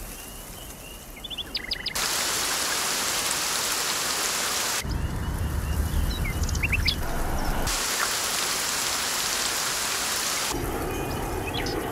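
Rain falling in a steady hiss, broken into abrupt spliced sections, with a low thunder rumble about five seconds in and a few short bird chirps twice.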